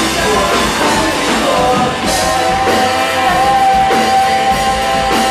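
Live rock band playing, with vocals, electric bass, electric guitar and drum kit; one long high note is held from about a second and a half in.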